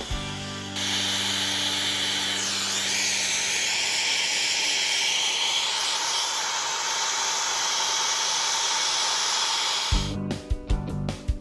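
Steady hiss of a gas torch flame. It comes on sharply about a second in and cuts off abruptly near the end. Background music plays before and after it.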